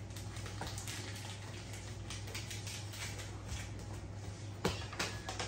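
Faint rustling and light clicks of puppies mouthing a cardboard box and a treat packet being handled, with a few sharper clicks near the end, over a steady low hum.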